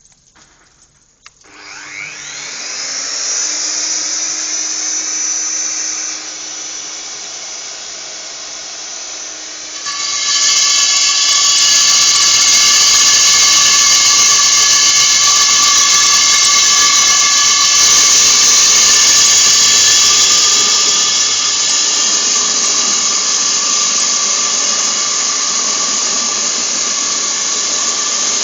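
Husqvarna DM280 electric core drill starting up about a second and a half in and spinning up, then running steadily on a wet diamond core bit in reinforced concrete. About ten seconds in it grows much louder, with a steady high-pitched whine.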